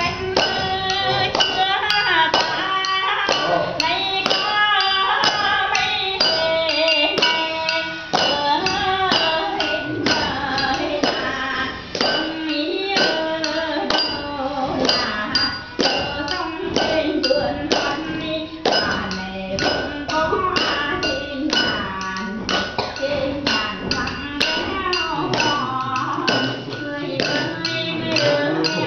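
Unaccompanied Vietnamese folk singing, a voice carrying a bending melody, over a quick, steady tapping beat that keeps time.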